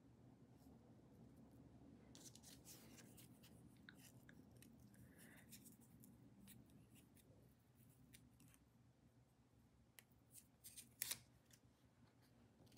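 Faint rustling and crinkling of small paper-backed fusible appliqué pieces being handled and peeled, with a brief cluster of sharper crackles near the end.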